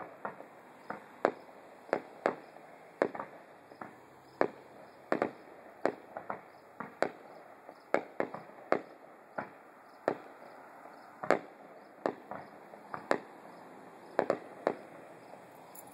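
Distant aerial fireworks shells bursting in a steady barrage: sharp bangs at uneven spacing, roughly two a second, each trailing off in a short echo.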